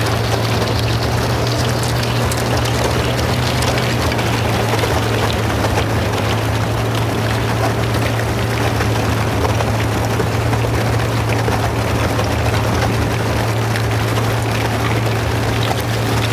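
Boat motor running steadily with a low hum as the hull breaks through thin ice, with a constant crackling and clinking of ice sheets breaking up.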